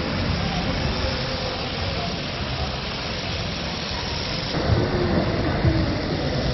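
Busy outdoor street-market ambience: a steady noisy hiss with indistinct crowd voices mixed in.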